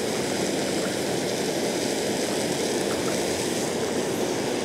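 Steady rushing outdoor noise of wind and water around a small open boat, with no distinct event standing out.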